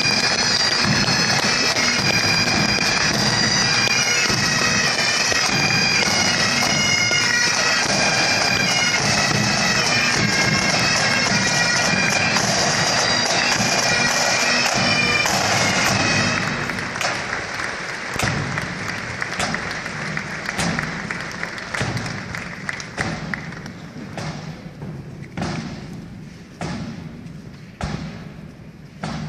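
Highland pipe band's bagpipes playing a tune over their drones, cutting off about sixteen seconds in. A slow, even run of thuds follows, about one a second, echoing in a large hall.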